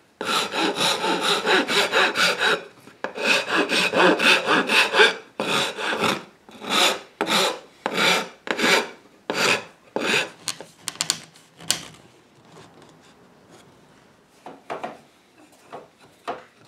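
Wood rasp scraping the tenon end of a new wooden chair rail, shaping its taper. It runs in quick back-and-forth strokes at first, then slower single strokes about two a second, and stops about twelve seconds in. A few faint knocks come near the end.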